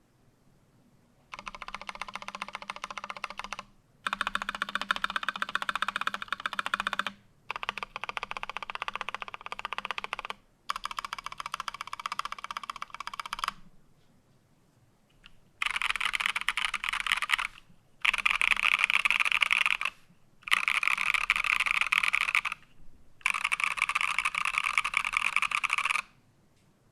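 PC Think 6.5 mechanical keyboard with lubed Paco switches and PBT keycaps, keys struck rapidly in eight separate bursts of about two to three seconds each. The last four bursts are louder and brighter than the first four.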